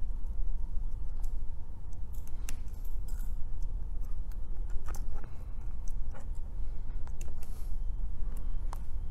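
Scattered small clicks and taps as flex cable connectors are pressed onto an iPhone 11 Pro Max's logic board, over a steady low rumble.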